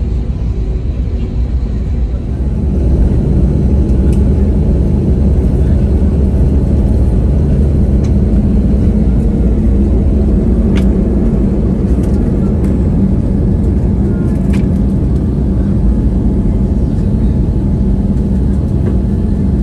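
Jet airliner takeoff heard from inside the cabin: the engine and rolling noise swells about two to three seconds in as thrust comes up, then holds as a loud, steady rumble through the takeoff run and climb-out.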